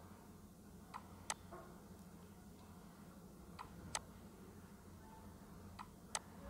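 Computer mouse clicking: three quick press-and-release double clicks, about two and a half seconds apart, as line points are placed. A faint steady low hum runs underneath.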